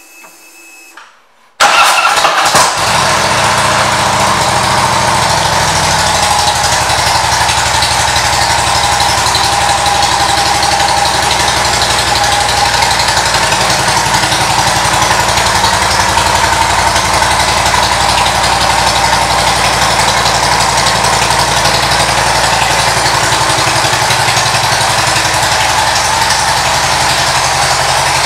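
2013 Harley-Davidson Street Glide's V-twin engine, fitted with an aftermarket exhaust, starts suddenly about a second and a half in and then idles steadily.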